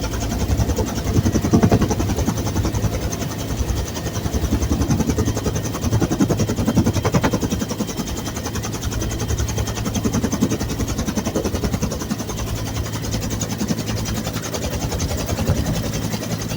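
Bell UH-1 Huey helicopter running, its turbine and rotor making a loud, steady drone with a rapid, even chop from the blades.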